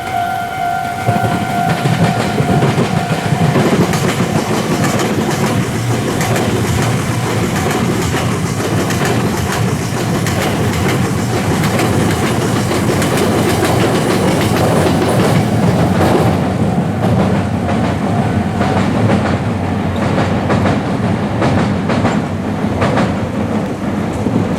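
A Meitetsu electric train passing over a level crossing, its wheels clicking over the rail joints in a steady loud rumble. The crossing's warning tones sound in the first few seconds, then only the train is heard.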